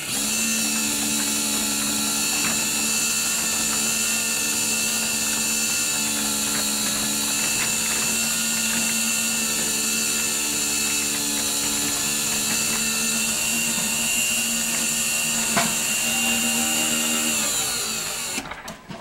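Genie 1024 garage door opener, converted to a side-mounted jackshaft drive with a 3/4 horsepower motor, running steadily as it moves the door: a smooth, quiet hum with a high whine, slowing to a stop near the end.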